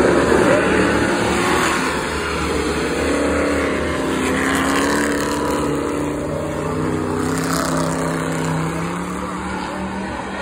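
Several dirt-track stock car engines running. One passes loudest near the start, then the pack drones on at lower, slowly wandering revs.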